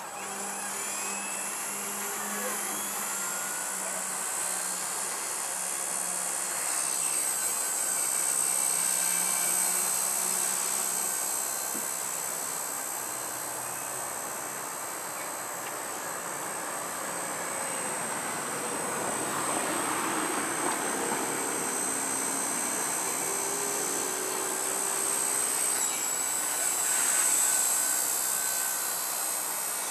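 Blade mCP X micro collective-pitch RC helicopter's electric motors and rotors whining as it flies, a high steady whine that rises near the start and wavers in pitch with the throttle, dipping briefly near the end.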